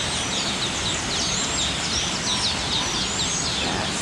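A flock of Taveta golden weavers chattering, with many quick overlapping chirps and short sweeping notes, over a steady background hiss.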